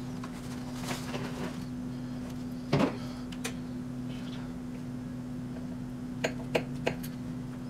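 Handling sounds at a sewing machine while the machine is not stitching: one knock about three seconds in, then three light clicks close together near the end, over a steady low hum.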